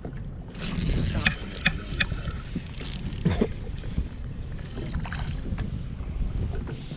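Gusty wind rumbling on the microphone aboard a small fishing boat on open water, with a short burst of hiss and a few sharp clicks about a second in.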